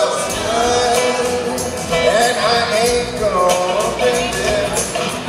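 Live band playing a bluesy instrumental break, led by a slide guitar whose notes glide and bend over the drums.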